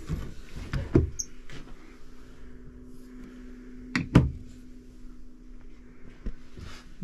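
Knocks and bumps inside a small boat cabin: one knock about a second in and a louder double knock about four seconds in, over a steady low hum.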